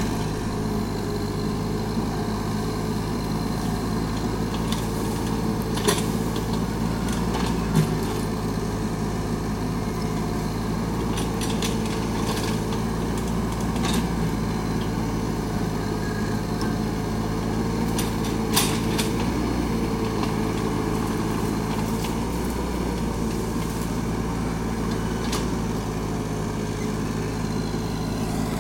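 Mini excavator's diesel engine running steadily, with a few sharp metallic knocks at intervals.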